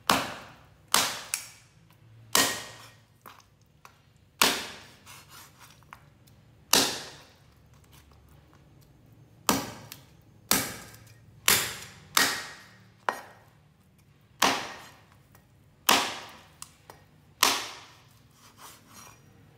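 A heavy cleaver chopping through raw pork ribs, bone and all, on a bamboo cutting board: about a dozen sharp chops, spaced a second or two apart, each with a short ring.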